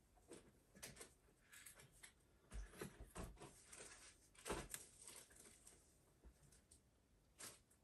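Faint, scattered knocks and rustles of someone rummaging through stored items off-camera, with a few louder knocks about a third and halfway in.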